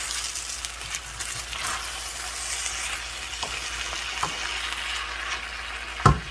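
Chicken, water spinach and green peppers sizzling in a frying pan as they are stir-fried with a wooden spatula, with a few light scrapes and clicks. The sizzle eases a little after about five seconds, and a sharp knock comes near the end.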